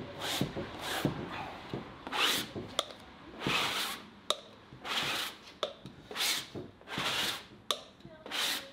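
Paintbrush dragging thick paint across a large canvas in repeated swishing strokes, about one a second, with a few short clicks between strokes.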